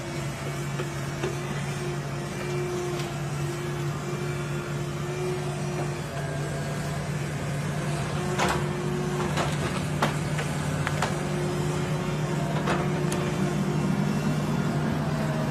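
Diesel engine of a tracked forestry machine running steadily as it works, with a run of sharp knocks and cracks, wood and the grapple head striking logs, about halfway through.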